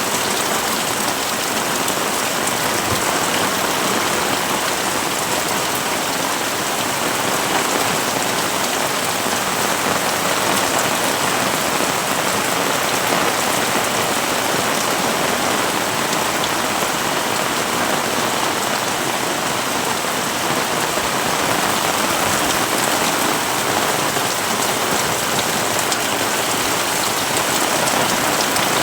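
Heavy rain falling steadily, a dense, even hiss of drops that holds at the same level throughout.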